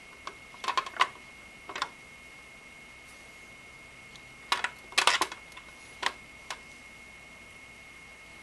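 Small clicks and taps of hand-fitted hardware as rubber standoffs are pushed onto the CPU cooler backplate's mounting bolts around the socket. They come in short clusters about a second in, near two seconds, and again between about four and a half and six and a half seconds.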